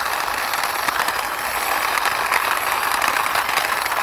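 Plastic wheels of a toy police car rolling as it is pushed along by hand: a steady rattling.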